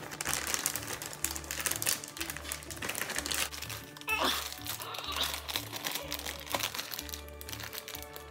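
Thin clear plastic bag crinkling as it is pulled open by hand, with a plastic sprue inside. Background music with a repeating bass line underneath.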